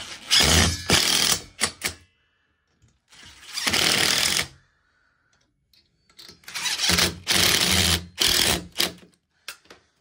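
Cordless driver running in three bursts, driving and tightening the screws that fix a steel radiator bracket to the wall; the last burst is the longest.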